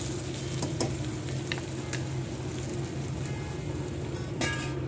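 Bitter gourd stir-fry sizzling in a stainless steel kadai, with a steel spoon scraping and clicking against the pan. Near the end a stainless steel lid clanks onto the pan and rings briefly.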